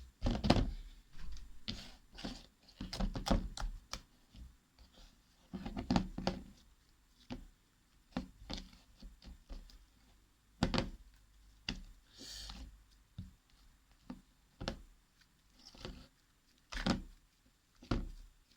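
A very soft slime being handled: irregular wet squelches, pops and clicks as it is stretched, folded and squeezed, some with dull thuds under them.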